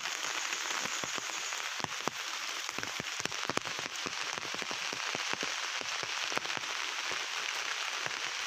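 Steady hiss of falling water, with many small ticks and taps scattered over it.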